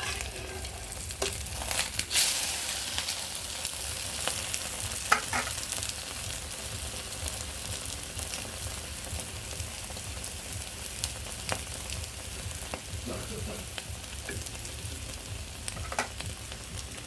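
Eggs frying in hot oil in a pan: a steady sizzle, broken by a few sharp clicks and scrapes, the loudest about two and five seconds in.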